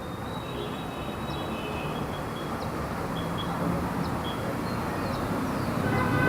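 Light city street traffic: the steady rumble of passing road vehicles, growing gradually louder as one approaches, with short high chirps above it.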